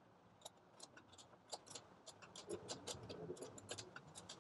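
Faint, irregular metal ticks and clicks as a new liftgate gas strut is turned by hand, threading its end fitting onto the mounting stud.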